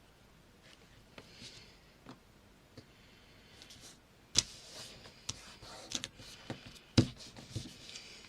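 Paper and craft tools being handled on a table: faint rustling and small clicks, then from about four seconds in a few sharp taps and knocks, the loudest about seven seconds in.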